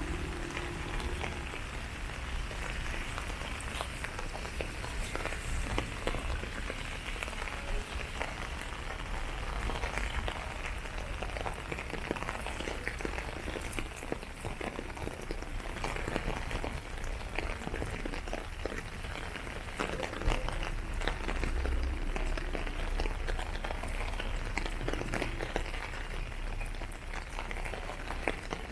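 Outdoor walking ambience: a steady, rain-like hiss with many small clicks and taps over a low rumble.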